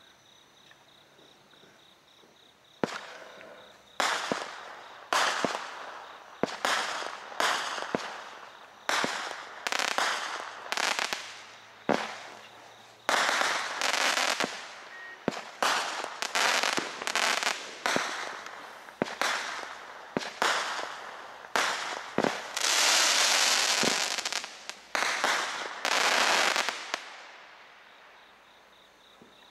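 A multi-shot aerial firework firing. After about three seconds of quiet, a string of sharp bangs comes roughly one or two a second, each trailing off as the burst spreads. A longer, denser stretch of noise comes near the end, and the shots stop a few seconds before the end.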